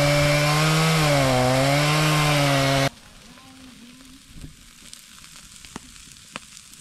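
Chainsaw running at full throttle, its pitch dropping briefly under the load of a cut and then recovering, cut off suddenly about three seconds in. A much quieter steady hiss follows, with a few scattered sharp pops.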